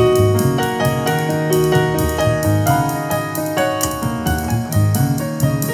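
Instrumental music, with held notes over a strong bass line, played through a pair of Dual CL270 three-way loudspeakers made in Germany.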